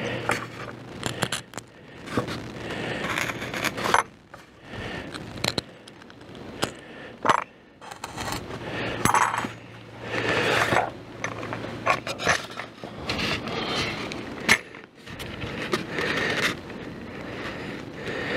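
Polystyrene foam insulation panels being handled and fitted against a wooden beehive: irregular scraping and rubbing, with many sharp clicks and knocks scattered through.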